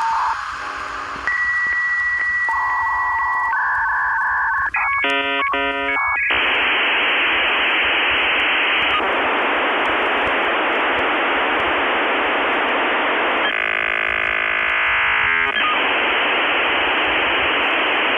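Electronic telephone-line tones: a steady high beep and quick stepping tones for the first few seconds, then a long, even hiss of static that cuts off above the treble, like a dial-up modem handshake.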